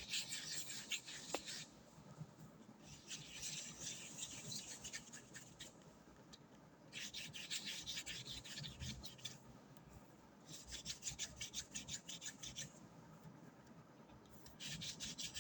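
Close-up scratchy rubbing, a crackly rasp that comes in five spells of about two seconds each, with short pauses between.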